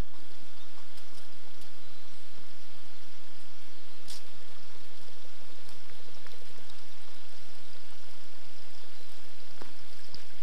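Steady rush of running water, with a couple of faint clicks.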